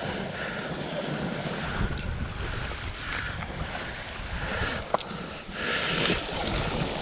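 Sea water washing against shore rocks, with wind buffeting the microphone; a louder wash comes about six seconds in, with a couple of small clicks before it.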